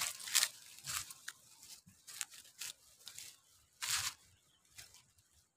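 Dry leaves and undergrowth crunching and rustling underfoot and against the body as someone pushes along a narrow path: irregular bursts, with one loud rustle about four seconds in, then fading.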